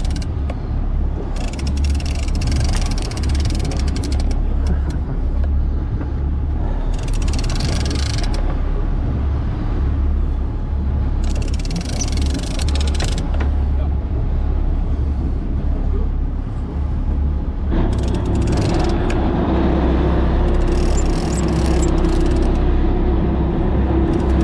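Sport-fishing boat's engine running with a steady low drone, with recurring bursts of hiss over it. About 18 seconds in, a higher steady hum joins in and holds to the end.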